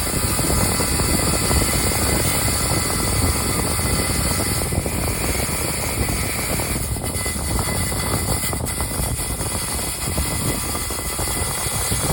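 A power tool running steadily under load, with a rough, continuous grinding noise.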